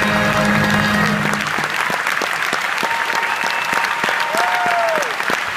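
Theatre audience applauding, with the orchestra's held final chord cutting off about a second and a half in. A short whistle rises and falls near the end.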